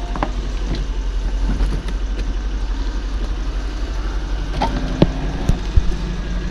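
Power retractable hardtop of a Lexus SC430 (Toyota Soarer) folding open: the roof mechanism runs steadily over a low hum, with a few sharp clicks and clunks as the panels and trunk lid move.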